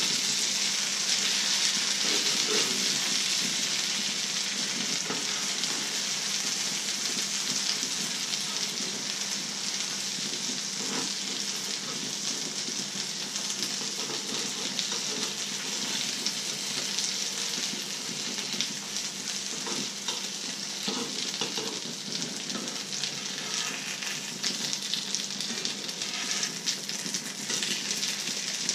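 Breaded sticks and egg sizzling steadily as they fry in oil in a frying pan, with the occasional light scrape and tap of a spatula in the pan.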